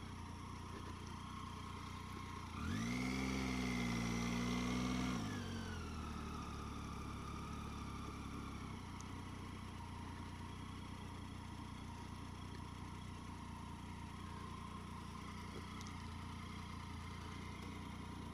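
Triumph Tiger 800 XC's three-cylinder engine idling, then revving up sharply as the bike pulls away about two and a half seconds in. It holds the higher revs for a couple of seconds, drops back, and runs steadily at low revs.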